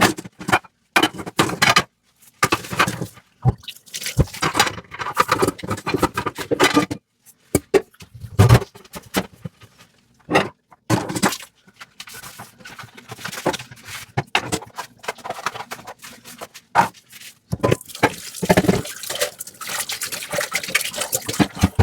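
Dishes being washed by hand at a sink: irregular clinks and knocks of crockery and scrubbing, with water running from about three-quarters of the way in.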